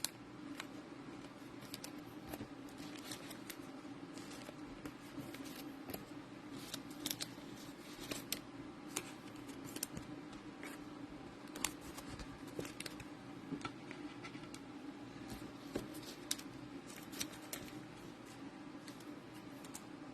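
Faint crinkling and clicking of a trading card pack being opened and its cards handled, with scattered sharp ticks over a steady low hum.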